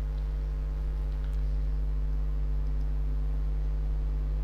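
Steady electrical mains hum, a low buzz with a stack of overtones, running evenly.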